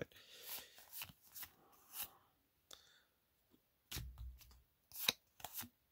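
Faint rustling and flicking of Magic: The Gathering foil trading cards handled in a stack, several short card-on-card slides with a dull bump about four seconds in.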